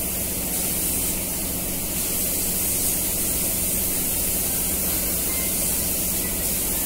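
Compressed-air gravity-feed spray gun spraying the final coat of paint onto a car bumper: a steady hiss of air and atomised paint.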